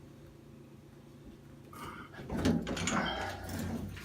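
A deep box wrench unscrewing a stem from an old two-handle Price Pfister shower valve: metal scraping and clicking that starts about two seconds in, after a quiet start.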